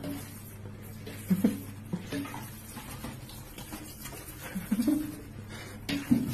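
Domestic cat giving short meows three times, each call bending in pitch, over a steady low hum.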